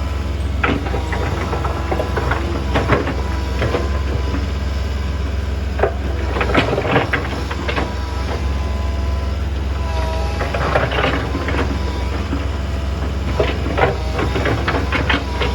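Excavator's diesel engine running steadily while stones clatter and knock against its steel bucket in irregular clusters, with a wavering hydraulic whine now and then.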